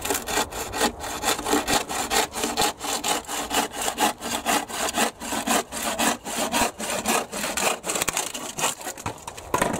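Hand rip saw cutting through a timber board, with steady rhythmic back-and-forth strokes that stop just before the end.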